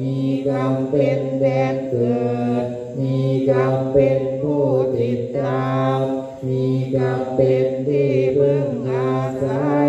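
Thai Buddhist monks chanting the evening chant together in unison, many voices holding one steady low pitch and pausing briefly between phrases every second or two.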